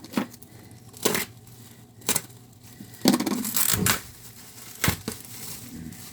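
Packaging being unwrapped by hand: a few short rustles and knocks, and a longer tearing crinkle about three seconds in.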